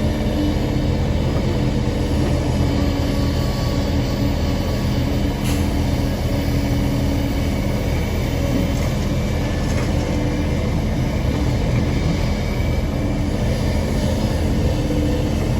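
Kobelco hydraulic excavator's diesel engine running steadily under load, a continuous low drone, with a couple of faint clicks midway.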